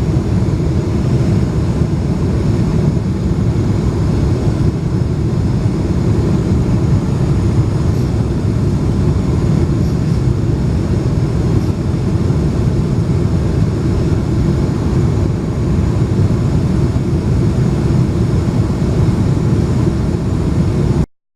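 Steady, loud engine and airflow noise inside the cabin of a Boeing 747-436 in its climb, its Rolls-Royce RB211-524 turbofans heard as a low, even rumble. The sound drops out for a moment right at the end.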